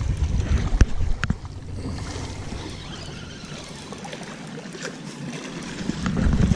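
Wind buffeting the microphone, with small waves lapping against shoreline rocks. Two sharp clicks come about a second in; the wind rumble drops away after about a second and a half and gusts up again near the end.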